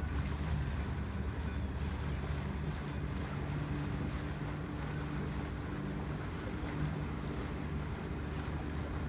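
Boat engine running at a steady drone, with the wash of water and wind noise on the microphone.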